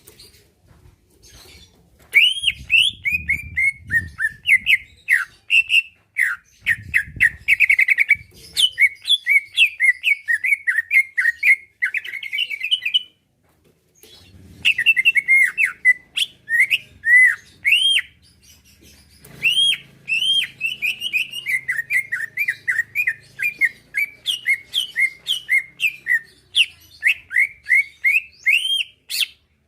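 Green leafbird (cucak ijo) singing a fast, continuous run of short sweeping chirps, starting about two seconds in, with a brief pause about halfway through.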